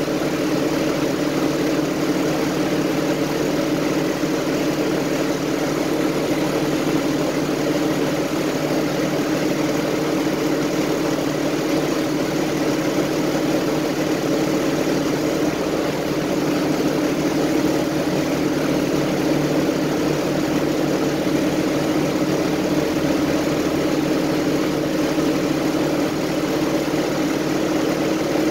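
City transit bus engine running with a steady, even drone, heard from inside the passenger cabin.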